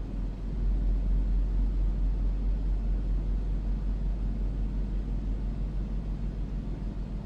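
Steady low drone and hum of a running generator, with a Furrion Chill Cube 18k rooftop RV air conditioner running on medium fan with its duct closed, quiet beneath the generator.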